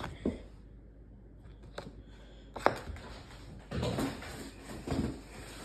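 Cardboard box and packaging being handled: a few light taps, one sharp knock about two and a half seconds in, then rustling as a plastic-wrapped item is drawn out of the box.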